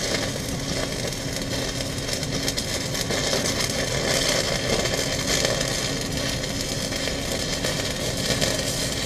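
E6010 stick electrode arc crackling and hissing steadily during an open-root pass, with a steady low hum underneath. The arc is being pushed through the gap so that it blows out the back of the joint, which gives a different sound than welding with backing.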